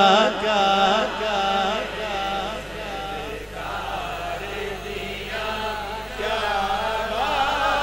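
Male voices chanting a slow, drawn-out, wavering melody between the sung lines of a naat recital. Loudest at the start, it dips in the middle and swells again near the end.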